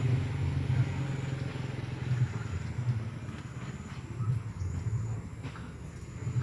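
A low, uneven engine rumble from a motor running nearby.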